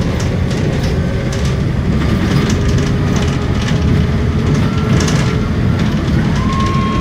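Cabin noise of a moving city bus: a steady low engine and road rumble with frequent clicks and rattles from the body and windows. A thin steady whine comes in about six seconds in.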